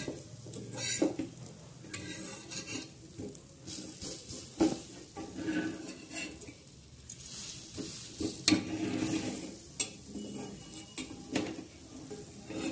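Metal spatula scraping and clinking on a hot iron tawa as a lacy rice-batter pancake is folded over, with a light sizzle underneath. A few sharp clinks stand out, the loudest about eight and a half seconds in.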